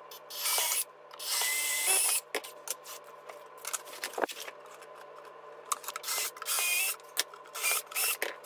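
Makita 18V cordless drill running in short bursts with a whine as it bores pilot holes through cabinet drawer fronts for pulls: two bursts early on, then several more near the end. Between bursts, clicks and knocks of the metal drilling jig being moved and set against the drawer.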